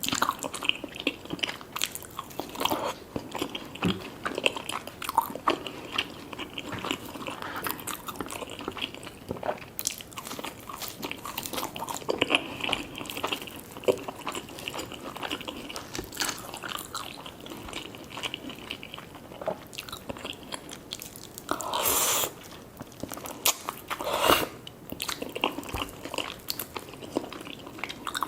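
Close-miked biting, crunching and chewing of a fried chicken and fries meal, a steady run of irregular crisp crackles and mouth sounds. Two louder, fuller crunches stand out about 22 and 24 seconds in.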